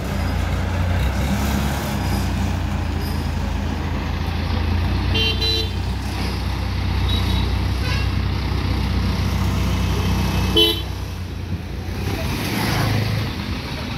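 Diesel engine of an ACE Hydra pick-and-carry crane running steadily as the crane moves off. A vehicle horn toots briefly about five seconds in, and again, shorter, a few seconds later.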